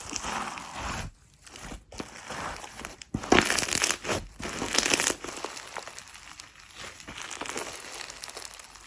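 Slime being squeezed and worked by hand, making crackling, crinkling sounds; loudest in a stretch about three to five seconds in.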